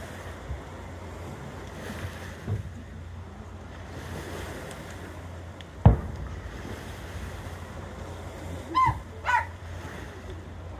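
A single loud firework burst booms about six seconds in, over a steady wind-like rush on the microphone. Two short voice-like cries follow a few seconds later.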